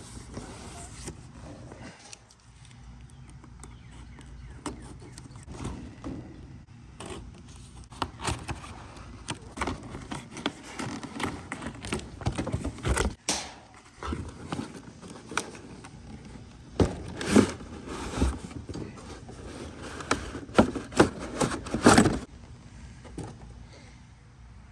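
Toy packaging being handled and opened by hand: an irregular run of scrapes, rustles and sharp clicks, busier and louder in the second half.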